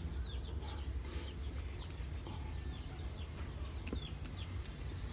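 Birds chirping: a run of short, falling chirps, several a second, over a low steady rumble, with a couple of sharp clicks.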